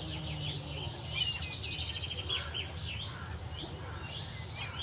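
Small birds chirping and twittering, many short quick calls overlapping, over a steady low rumble of outdoor noise.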